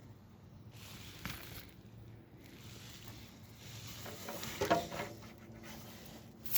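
Scattered handling noises: a click a little over a second in, then a short cluster of scraping knocks about four and a half seconds in.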